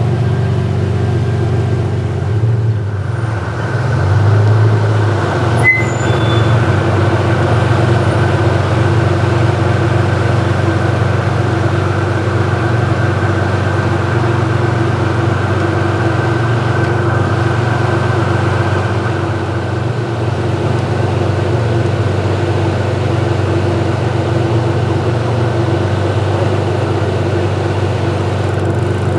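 A vehicle engine idling steadily with an even, unchanging hum, and a single sharp click about six seconds in.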